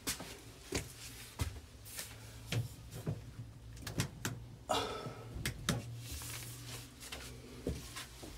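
Irregular sharp knocks and clicks, a dozen or so, over a low steady hum, with a short scraping rush about five seconds in.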